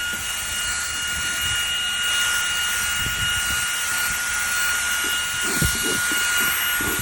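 Eufy H30 cordless handheld vacuum running with a steady high whine and airflow hiss as its brush attachment scrubs embedded sand out of car carpet, with a few rubbing knocks of the brush about five seconds in.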